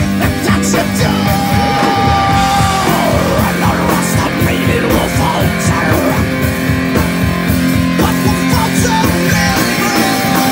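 Heavy metal band playing live, loud: distorted electric guitars and bass over fast, steady drumming, with a singer's held vocal notes on top.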